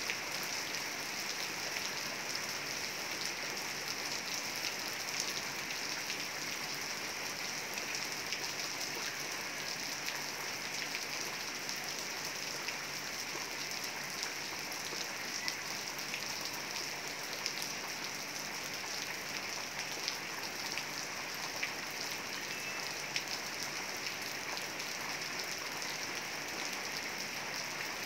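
Heavy rain falling steadily, with single close drops ticking here and there through the even hiss.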